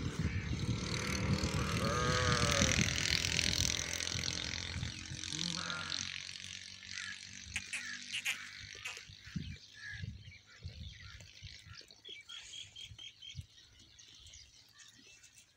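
Sheep and goats grazing at close range, with one short bleat about two seconds in over a loud rushing noise that fades out by about six seconds. After that come quieter scattered clicks and soft knocks of the animals cropping and chewing dry grass and shifting on their feet.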